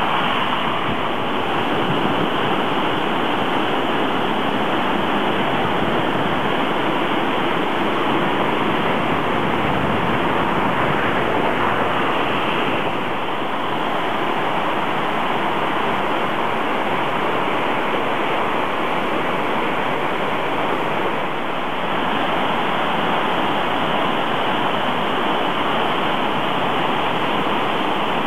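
Flooded mountain stream with a steady, loud rush of muddy floodwater. The heavy rain has swollen it into a torrent.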